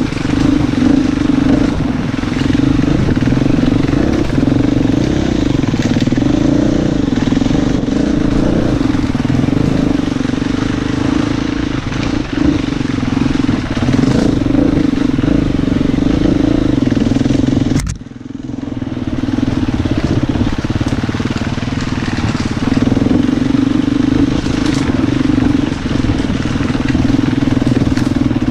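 Husqvarna FE 250 four-stroke single-cylinder enduro engine running under throttle as the bike climbs a rough trail. About two-thirds through the engine note drops away briefly, then picks up again.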